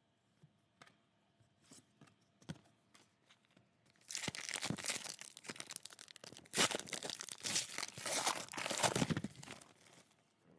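A trading-card pack wrapper being torn open and crinkled, after a few seconds of light clicks from handling.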